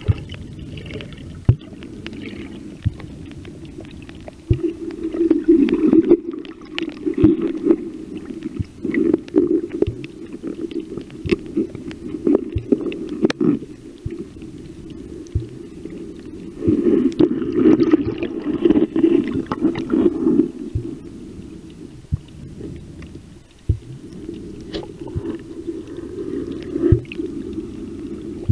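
Muffled underwater sound from a submerged camera: water sloshing and gurgling in uneven swells, louder in several stretches, with many scattered sharp clicks.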